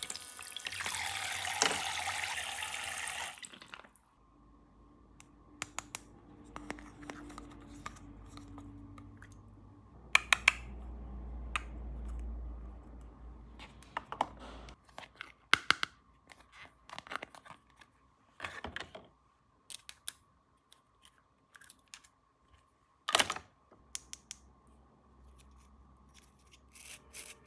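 Water running, cutting off about four seconds in, then scattered light clicks and taps of small plastic toy pieces being handled.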